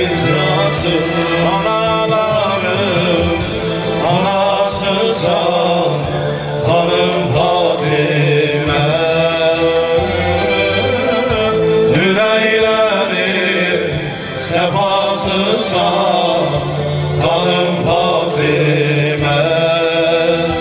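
Male voices singing an Azerbaijani Islamic devotional song (ilahi) in long, drawn-out melodic lines into microphones, with a synthesizer holding sustained chords underneath.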